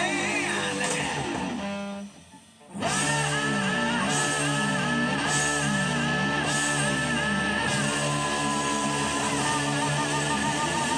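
Rock music led by electric guitar; it breaks off briefly about two seconds in, then the band comes back in with a repeating guitar riff.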